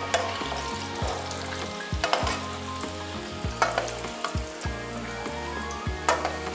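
Strips of dough deep-frying in hot oil, sizzling steadily, with several sharp clinks of a metal wire strainer against the pan as the golden pieces are stirred and lifted out.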